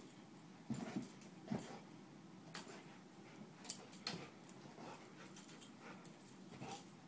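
A dog chasing a laser dot across carpet: irregular soft thumps and scuffs of its paws as it pounces and scrabbles, about nine over a few seconds.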